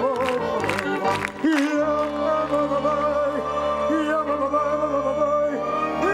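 Live Yiddish music. A rhythmic accompaniment pulses for about a second and a half, then gives way to a long held melody note with vibrato over a steady low drone.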